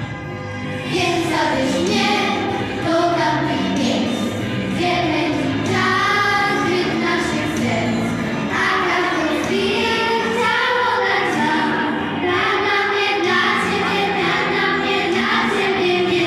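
Children's choir of girls singing a song together, with instrumental accompaniment underneath.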